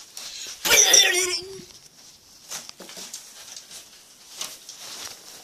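A short, sharp yelp-like cry about a second in, then scattered light knocks and handling noise.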